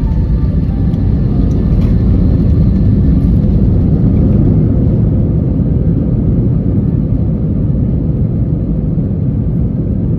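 Steady low rumble inside the cabin of an Airbus A321 rolling on the runway after touchdown, easing slightly toward the end. Faint tones fade out in the first couple of seconds.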